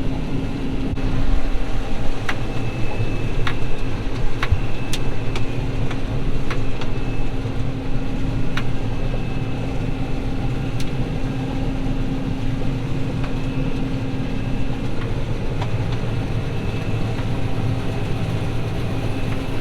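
Combine harvester running steadily while cutting soybeans: an even engine hum with a thin steady whine over it, and scattered sharp ticks during the first half.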